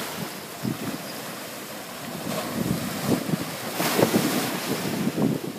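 Sea surf washing up the beach, with wind buffeting the microphone in gusts. The surf swells louder about four seconds in.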